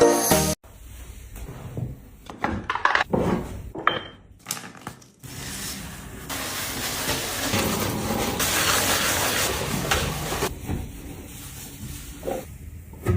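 Household cleaning sounds. First a few knocks and clinks of objects being handled, then about five seconds of steady scrubbing, then quieter handling and a single knock near the end.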